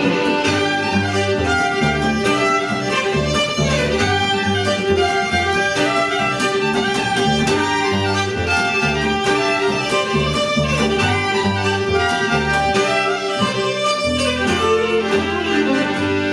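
A string band playing a lively fiddle tune live: the fiddle carries the melody over a steady rhythm accompaniment and a moving bass line.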